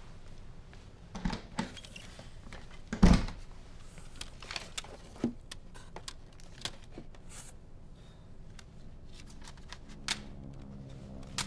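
Things being handled on a cluttered desk: scattered clicks, knocks and rustles, with one louder thump about three seconds in. A low steady tone comes in near the end.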